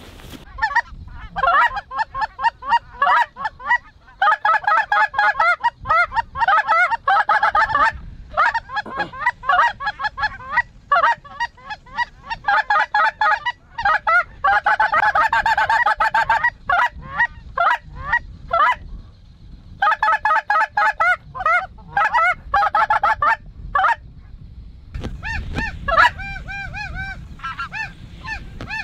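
Geese honking: a dense, overlapping clamor of short honks with a few brief breaks, thinning after about 25 seconds to a slower run of single honks.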